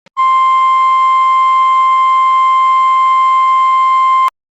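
NOAA Weather Radio 1050 Hz warning alarm tone: a single steady high tone held for about four seconds, then cut off abruptly. It is the alert signal that switches on specially built weather-radio receivers during a test.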